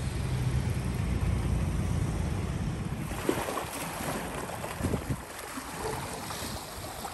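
Outdoor street ambience with wind buffeting the microphone and a low rumble of passing traffic that eases after about three seconds, leaving a general noise with a few faint knocks.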